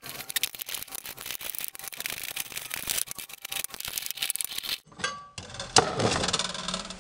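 Rapid, irregular small metal clicks and rattles of bolts being worked out of a perforated steel flame-tube end plate. After a cut about five seconds in come handling noises and a sharp knock.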